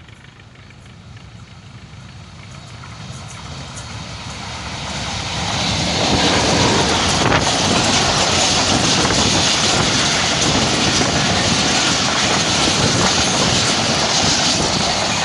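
Pakistan Railways passenger coaches running past on the adjacent track, the wheels rumbling on the rails. It grows louder over the first six seconds, then holds steady and loud.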